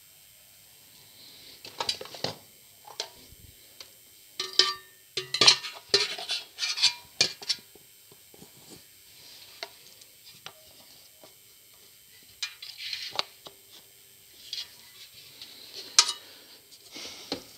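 Irregular clicks and metallic clattering as the parts and stainless steel jug of a thermal mixer are handled and fitted back together, with a dense run of clatter a few seconds in and a single sharp knock near the end.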